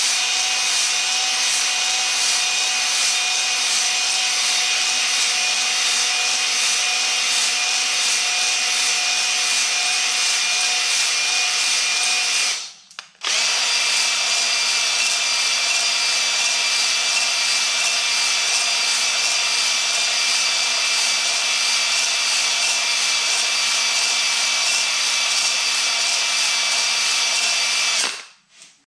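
Cordless drill spinning a flex ball hone inside the cylinder bores of a Ford flathead V8 block, honing the walls with a steady whine and the rub of the abrasive on the iron. The drill stops and restarts once about halfway through, then stops again just before the end.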